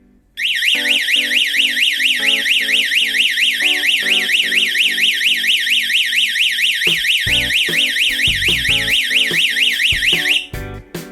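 Electronic security alarm siren sounding with a fast up-and-down warble, starting abruptly and cutting off automatically after about ten seconds, the alarm's timed ten-second sounding when a panic button or door contact trips it.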